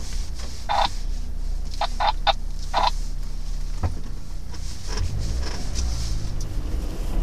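Off-road 4x4 crawling over a rutted dirt track: a low steady engine rumble with short high squeaks, several in quick succession in the first few seconds. The engine note swells briefly about five seconds in.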